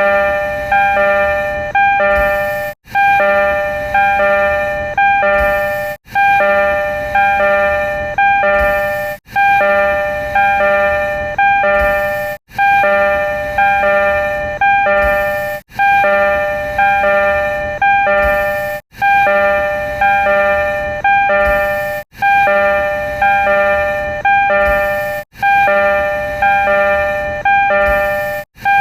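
Door chime of a renovated Tokyo Metro 02 series train: a three-note electronic chime, looped over and over, repeating about every three seconds with a brief break between repeats.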